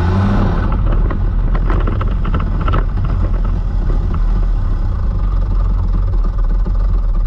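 Division 1 superkart's engine running hard at speed, heard onboard, loud and fairly steady, with a few short clicks in the first three seconds.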